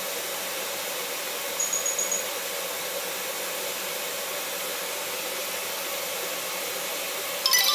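Kitchen tap running hot water, a steady hiss that stops abruptly near the end.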